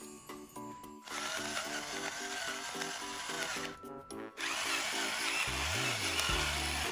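Pepper mill grinding black peppercorns: a steady rasping grind in two long stretches with a short break between them, over background music with a steady beat.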